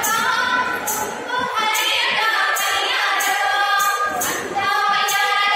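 Kannada folk song: singing voices carrying a melody, with a jingling percussion strike about every 0.8 seconds.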